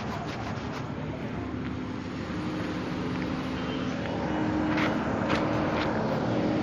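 A car engine running steadily: a low hum under a noisy rush that grows slowly louder, with a few light clicks a little past the middle.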